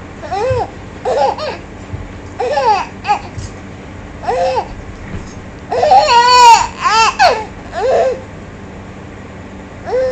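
A baby cooing and laughing in short, high-pitched squeals that rise and fall in pitch, about eight in all, the longest and loudest about six seconds in.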